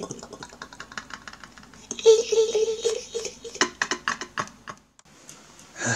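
Plastic and paper takeout bags rustling and crinkling as wrapped sub sandwiches are pulled out of them, a dense run of crackles and clicks. About two seconds in, a short steady hum lasting about a second is the loudest part.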